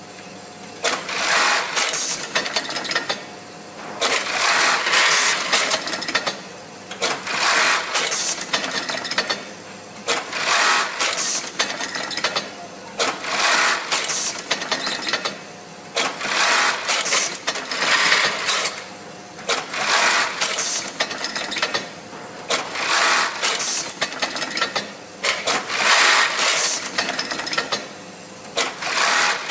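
Siruba BT290 industrial sewing machine running in repeated short runs of about two seconds each, stopping briefly between them, about ten times over.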